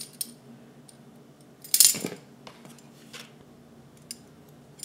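Metal kitchen utensils clinking: a spoon handled at a tin of baking powder, with one louder clatter about two seconds in and a few light ticks after it.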